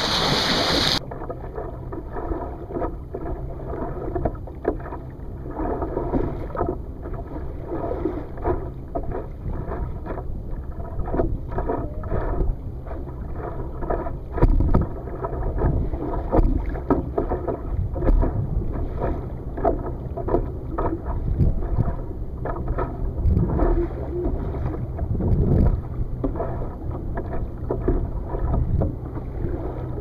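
Shallow ocean water sloshing and slapping right at the microphone at the water's surface, muffled, with irregular splashes. A small breaking wave splashes over it in the first second.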